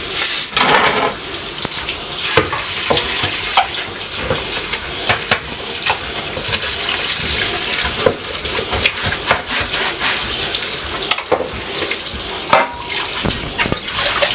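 Kitchen faucet running into the sink while vegetables are rinsed under it, with frequent small knocks and clatters.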